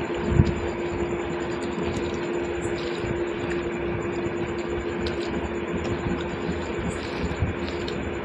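A steady mechanical hum with a constant tone, with a thump about half a second in and a few faint small clicks.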